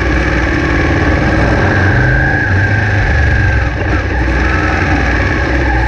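Ducati 959 Panigale's 955 cc Superquadro V-twin running at low road speed, heard from on the bike, with a short dip about two-thirds through as it shifts down from second to first.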